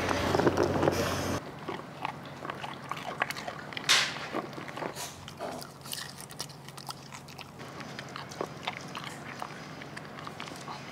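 Small dogs, a bichon frise and then a poodle, eating raw dog food from bowls up close: chewing and crunching with many small, irregular clicks of food and teeth against the bowl.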